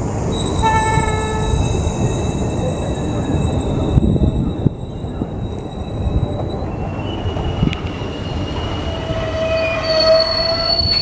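Indian Railways passenger train's wheels and brakes squealing as it rolls along the platform, several high steady squeal tones over a low rumble. A fresh set of squeals starts near the end.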